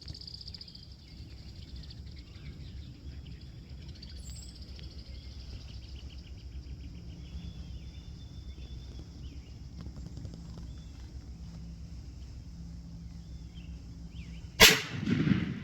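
Quiet outdoor background with faint birdsong, then near the end a single loud, sharp shotgun blast fired at an approaching wild turkey, with a short echo after it.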